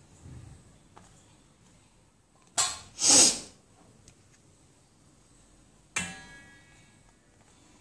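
Metal chakli press knocking and scraping against a stainless steel plate: two loud scraping noises about three seconds in, then a sharp clank with a short metallic ring at about six seconds.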